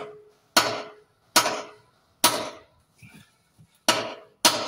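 Hammer blows on the metal frame of an exercise bike being knocked apart for scrap: five sharp strikes, each with a short metallic ring, with a brief pause after the third.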